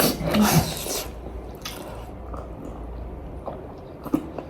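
Wet eating sounds of a person chewing food close to the microphone, loudest in the first second, then a few soft mouth clicks over a low hum.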